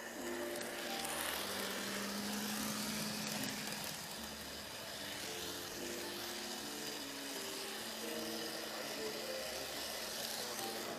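N gauge model train running along the track with the camera riding on it: a steady rushing rattle of wheels on rail and the small motor, a little louder about a second in as it enters a tunnel.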